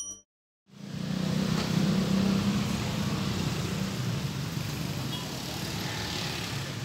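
A short electronic logo chime cuts off, then after a brief gap comes steady street noise with a low engine hum of road traffic.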